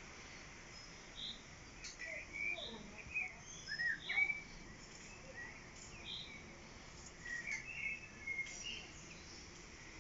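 Songbirds singing and chirping: short high notes repeating every second or two, mixed with quicker chirps and little rising whistles, over a faint steady outdoor hiss.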